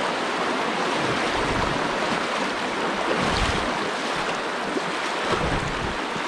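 Shallow, stony river running over rocks: a steady rush of water.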